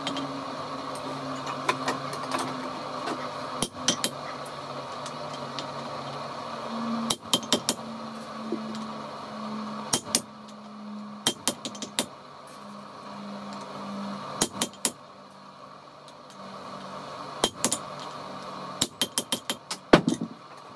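Hand hammer striking red-hot steel on an anvil during forging. The blows come in quick bursts of two to six strikes with pauses between, one of the loudest near the end.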